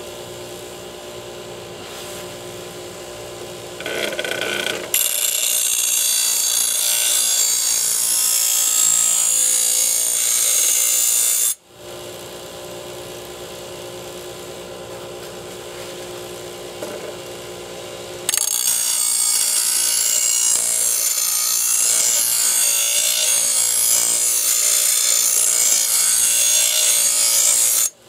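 Delta 6-inch bench grinder running with a steady motor hum while a steel lawn mower blade is sharpened on its wheel: two long spells of loud, hissing grinding, about 5 to 11 seconds in and again from about 18 seconds in.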